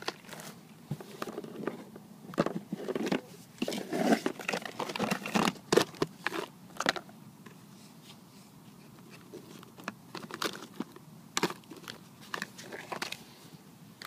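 Plastic tackle box and a lidded plastic tub being handled up close: irregular clicks, knocks and crinkles, thick for the first half and sparser after.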